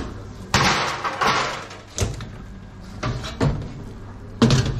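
Knocks and bangs of a stainless-steel counter cabinet and its door being handled, with a rustle about half a second in and the loudest bang near the end. A steady low electrical hum runs underneath.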